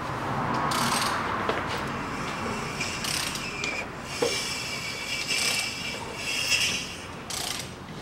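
Ratchet wrench clicking in several short bursts as a car engine is turned over slowly by hand, with its camshaft and rockers turning.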